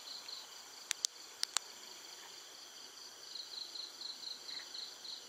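Night insects chirping steadily, a high trill with pulsed chirps about four a second. About a second in come four sharp clicks in two quick pairs, the MantaRay M6 flashlight's switch being pressed and released.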